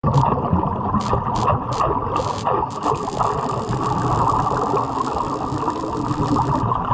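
Underwater welding arc crackling densely, with several short hissing bursts in the first three seconds.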